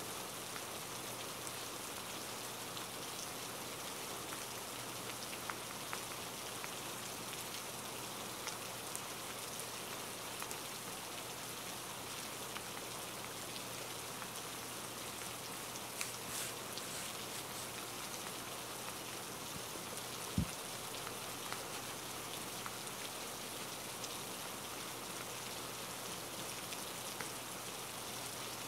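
Steady rain: an even hiss of falling rain with scattered faint drop ticks. One short low thump comes about two-thirds of the way through.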